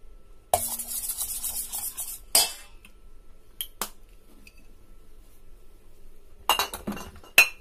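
A metal spoon scraping and clinking against a stainless steel mixing bowl. It starts with a rattling scrape for over a second, then a sharp clank, a few light clicks, and a quick run of clinks and clatter near the end.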